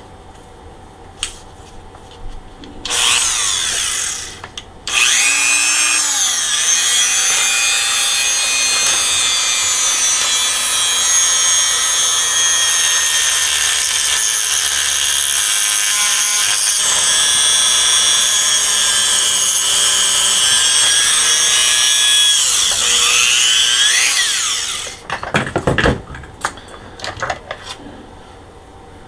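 Handheld rotary tool with a cut-off wheel cutting through a wire test antenna. A high whine starts with a short burst about three seconds in, then runs steadily for about twenty seconds before spinning down. A few clicks and knocks follow.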